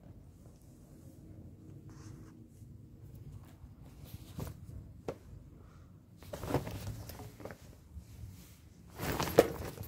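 A cat scuffling against a fabric parasol cover: rustling and soft thumps, with a couple of sharp clicks partway through and the loudest scuffle near the end.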